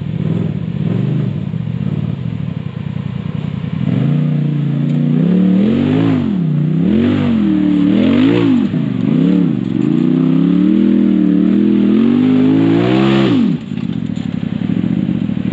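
Side-by-side UTV engine running low, then from about four seconds in revved up and down in repeated surges about once a second. The last rev climbs higher before cutting back sharply near the end.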